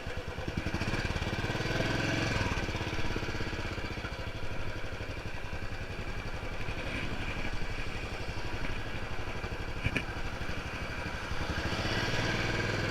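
A motorcycle engine idling steadily, its rapid even firing pulses swelling a little louder twice.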